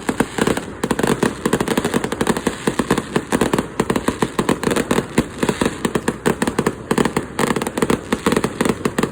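Aerial fireworks going off in a dense, rapid barrage of bangs and crackles, many a second, without a pause.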